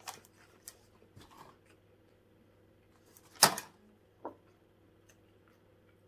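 Mouth sounds of a man chewing a cheeseburger: small wet clicks and smacks, with one loud, sharp sound about three and a half seconds in and a smaller click just under a second later. A faint steady hum runs underneath.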